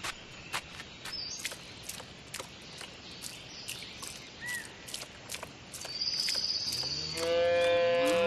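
A cow mooing, a single long moo sound effect that starts about seven seconds in and is the loudest sound, after several seconds of soft, quick clicks over a low hiss.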